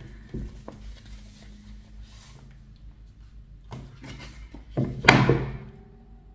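Album contents being handled: light taps and clicks of cardboard and plastic, then one louder knock about five seconds in, as something hard is set down, with a short ring after it.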